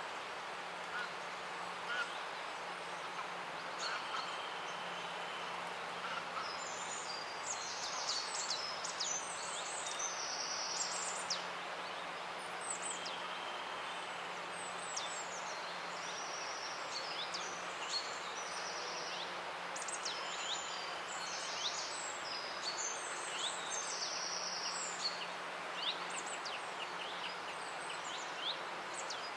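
Small songbirds chirping and trilling over the steady rush of a babbling brook, a woodland ambience recording; the birdsong grows busier after the first few seconds.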